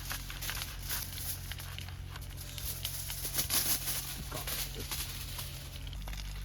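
Bacon and eggs sizzling in a thick iron frying pan over a Swedish torch log fire, with irregular crackles and pops. A steady low hum runs underneath.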